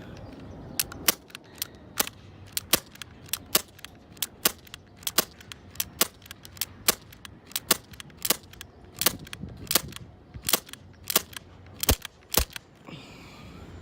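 Red Jacket CO2 airsoft pistol firing a long string of sharp pops, about two a second, stopping shortly before the end.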